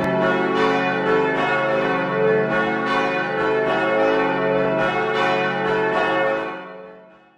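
Church bells ringing changes, a steady run of overlapping bell strikes that fades out near the end.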